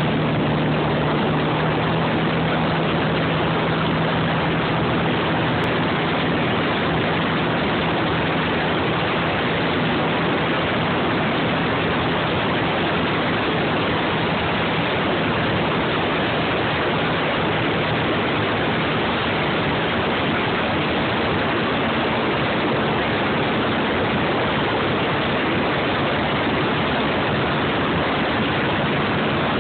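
Steady rush of wind buffeting the microphone while riding a Suzuki Eiger quad, with the ATV's single-cylinder four-stroke engine running at a steady speed as a low hum underneath.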